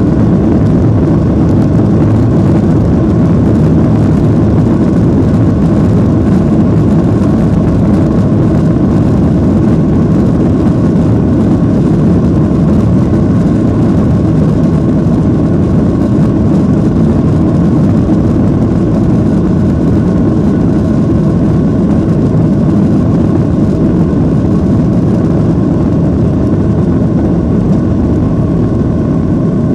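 Jet airliner's turbofan engines at takeoff power, heard from a cabin window seat over the wing during the takeoff roll: a loud, steady, low roar with a faint steady whine above it.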